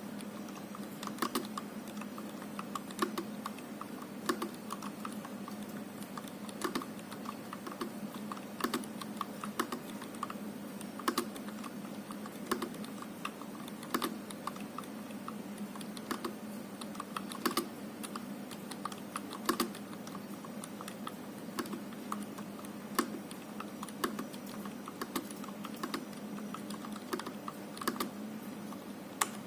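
Continuous typing on an IKBC C87 tenkeyless mechanical keyboard with Gateron Yellow linear switches: a steady stream of key clacks, with a louder stroke about every second and a half.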